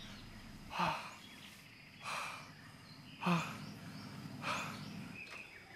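A person's short, breathy exhalations, four of them about a second apart.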